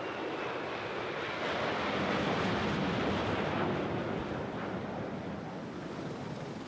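Rush of waves and wind, swelling about two seconds in and easing off toward the end.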